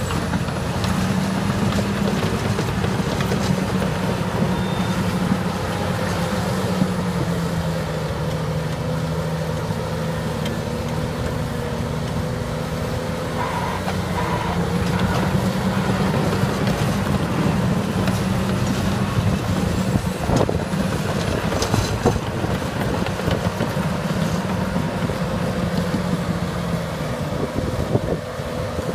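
Diesel engines of heavy earthmoving machines, a Liebherr 934C crawler excavator and a Caterpillar D6T crawler dozer, running as a steady low drone while they dig and push soil, with a few sharp knocks in the second half.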